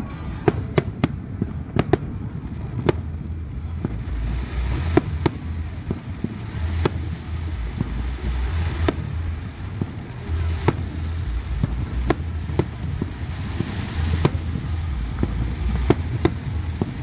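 Fireworks show: a long run of sharp bangs and cracks, about one every second at uneven spacing, over a continuous deep rumble.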